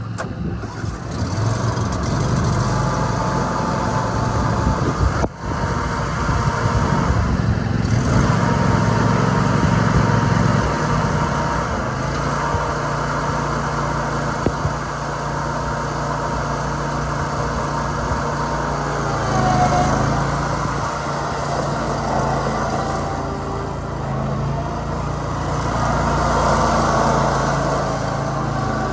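Briggs and Stratton gas engine of a Kioti ZXR60-2 zero-turn riding mower running steadily. Its engine speed shifts a few times, near the start, about halfway through and again a little later.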